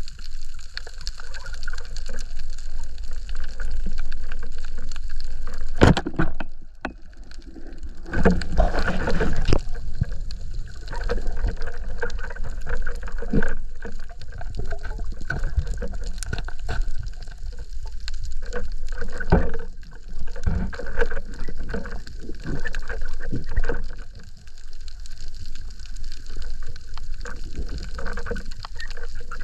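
Underwater sound picked up through an action camera's housing: water rushing and gurgling, with scattered clicks and crackles throughout, heaviest about a third of the way in.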